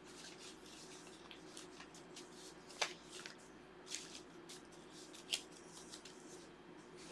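Faint scattered rustling and clicks over a steady low hum, with sharper clicks about three, four and five and a half seconds in.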